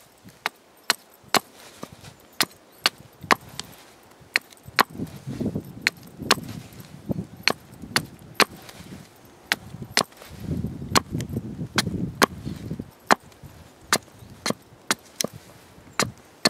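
Hatchet chopping at the lower end of a wooden stick held upright on a chopping block, sharpening it to a point. Sharp chops come about two a second, at an uneven pace.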